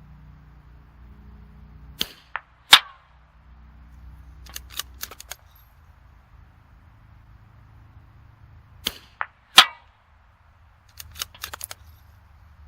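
Two .22LR rifle shots from a bench rest bolt-action rifle, about seven seconds apart, each a sharp crack. A couple of smaller clicks come just before each shot, and a quick run of metallic clicks follows each about two seconds later as the bolt is worked for the next round.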